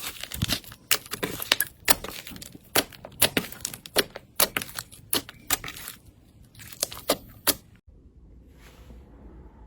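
Slime being squeezed and worked by hand, giving a quick run of sharp, irregular crackles and pops. It stops suddenly near the end, leaving only faint soft handling noise.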